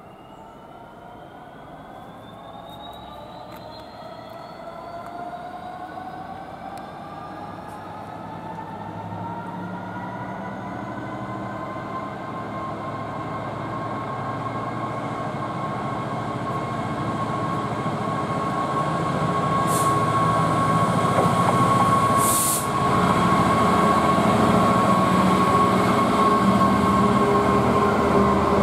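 Locomotive-hauled passenger train approaching and passing close by. It grows steadily louder over about twenty seconds, with a whine rising in pitch as it nears, then runs loud and steady as the coaches roll past on the rails. There are two brief high hisses about two-thirds of the way through.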